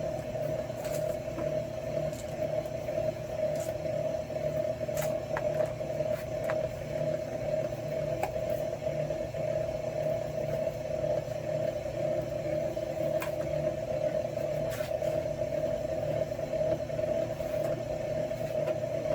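Wire stripping machine running with a steady motor hum while wire feeds through it, with scattered sharp clicks and ticks.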